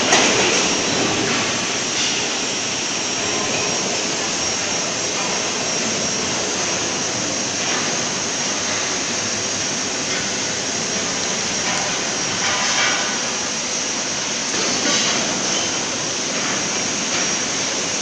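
Steady factory-floor machinery noise: an even, loud hiss with a faint high whine, swelling briefly a couple of times.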